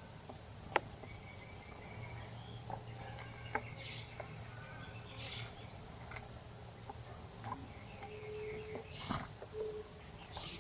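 Outdoor garden ambience with scattered short bird chirps and calls and a few sharp clicks. A low steady hum runs through the middle of it.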